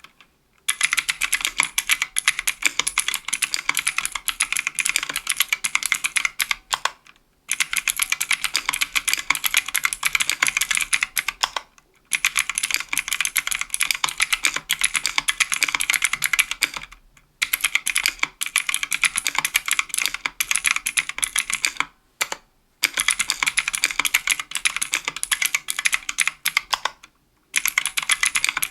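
Fast typing on a 60% aluminium-case, aluminium-plate mechanical keyboard with Kailh Pro Light Green clicky switches (50 g) and GMK keycaps: a dense run of sharp, high clicks in stretches of several seconds, with brief pauses between them.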